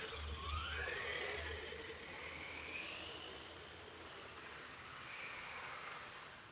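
Brushed electric drive motors of a Hosim 9125 1:10 4x4 RC truck whining, the pitch rising as the truck accelerates, then slowly getting fainter.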